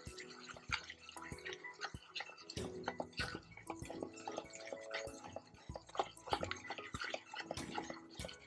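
Wire whisk beating thick moong dal batter in a steel bowl: quick, irregular wet slaps and clicks of the wires against the bowl.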